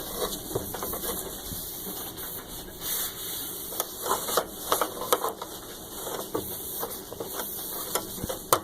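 A cloth wiping and rubbing the inside of a microwave oven, giving irregular scrubbing strokes and light knocks against the cavity walls.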